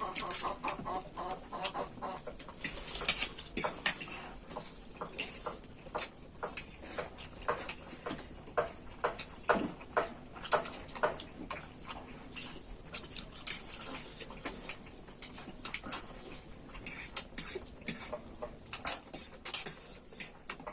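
Close-miked eating sounds: noodles being slurped and chewed, with many irregular wet smacks and clicks of the mouth.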